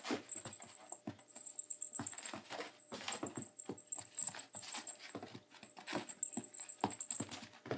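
Puppy playing with a cat toy: a busy run of irregular clicks, taps and scuffles, with a high jingling that comes and goes.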